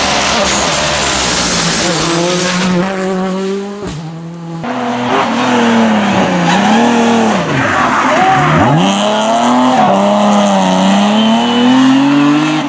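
Rally cars on an asphalt stage at full throttle. First, one car's engine is held high and rises through a gear change. After a cut about 4 s in, a second car's revs drop and climb again several times, then build steadily near the end.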